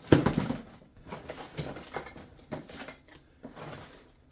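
A sharp knock, then irregular rustling and scraping of cardboard and packing material as a small parts box is opened and handled.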